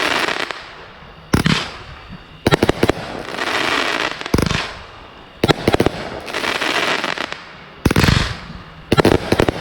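Consumer aerial fireworks going off in a series: a sharp bang about every second or so, sometimes two or three in quick succession, each followed by about a second of crackling.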